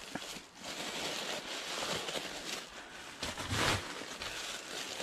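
Paper and plastic mail packaging rustling and crinkling as an envelope is torn open and its contents handled, with a louder rustle about three and a half seconds in.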